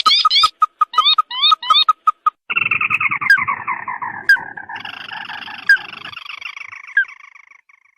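Crake lure call: a rapid run of short piping notes with sharp clicks. Then, about two and a half seconds in, a long chattering trill sets in, falls in pitch and fades away, with single sharp chirps breaking in about once a second.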